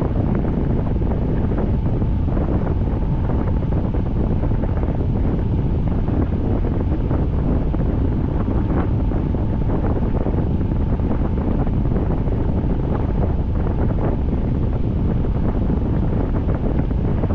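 Steady rain with wind buffeting the microphone: a dense, even noise heaviest in the low range, with faint scattered ticks of drops.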